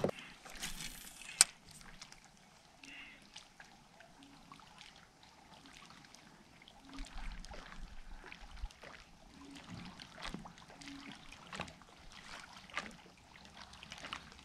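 Quiet water sounds around a plastic kayak as a fish stringer is handled: a brief splash with a sharp click about a second in. After that come faint lapping and scattered small knocks and clicks from gear against the hull.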